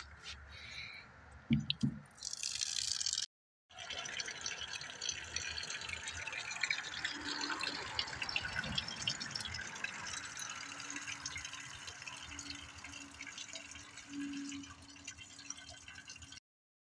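Water trickling and dripping from a rain barrel's brass spigot: a steady stream of small splashes that starts after a short break about three seconds in.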